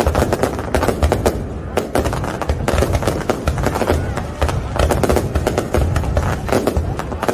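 Fireworks display: a dense, unbroken run of bangs and crackles over a low rumble.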